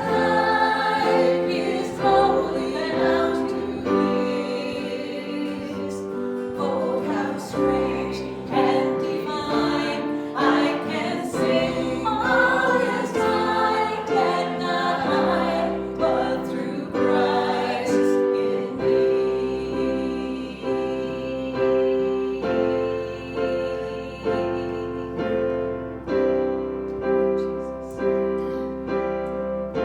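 A hymn sung by voices with piano accompaniment. About two-thirds of the way through the voices drop out and the piano plays on alone.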